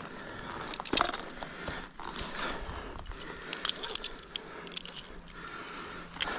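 A tree climber working up a trunk on gaffs and a flip line: scattered scrapes and sharp clicks of spikes biting the bark and the rope and its metal hardware knocking and jangling against the tree, with heavy breathing between.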